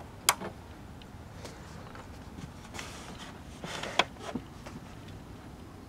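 A single sharp click about a third of a second in, as a vintage tube television's power switch is turned on. It is followed by a few faint clicks and brief rustles of handling.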